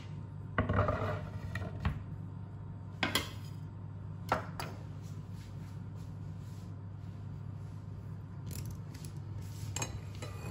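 Kitchen clatter: a few separate knocks of utensils and a wooden cutting board being set down on a stone countertop, over a steady low hum.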